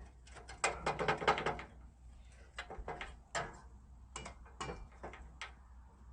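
Hand tools clicking and clinking against the metal bolts and radiator support: a quick run of clicks about a second in, then single clicks spread over the next few seconds.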